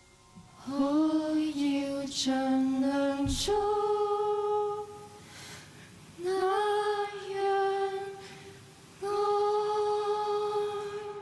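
A woman singing a slow song unaccompanied, in four phrases with long held notes, the later phrases pitched higher than the first.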